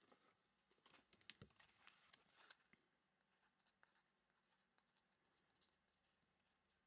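Near silence with faint rustling and light clicks of trading cards being handled, mostly in the first three seconds, then only a few tiny ticks.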